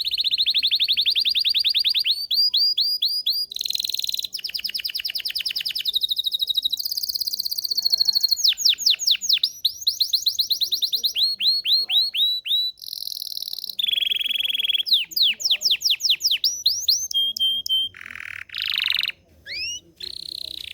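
Belgian canary (domestic canary) singing a long, unbroken song. It runs through a string of fast trills and rolls, switching to a new phrase every second or two, including runs of quick rising notes. The song breaks into shorter phrases near the end.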